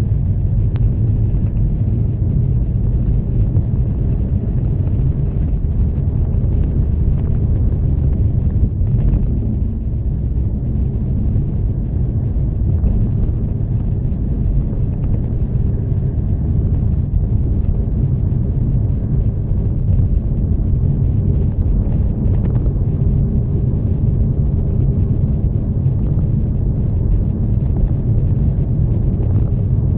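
Steady low rumble of a car being driven, with engine and tyre noise heard from inside the cabin.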